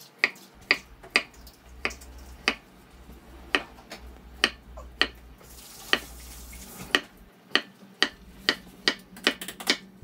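A large kitchen knife slicing through a cucumber and knocking on a wooden cutting board, about a dozen and a half sharp chops at an uneven pace that quickens near the end.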